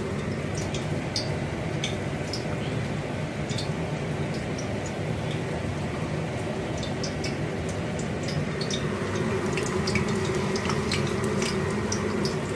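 Marinated fish pieces frying in hot oil in a kadai: a steady sizzle with scattered small pops and crackles.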